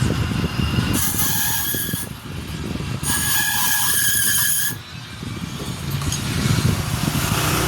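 Key-cutting machine cutting a key in two passes, each a bright, high whine of about one to one and a half seconds, over the steady rumble of street traffic.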